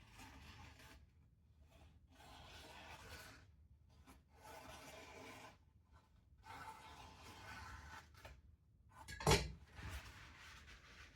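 Freshly sharpened knife slicing through thin paper in four slow, rasping strokes, then a single sharp knock about nine seconds in.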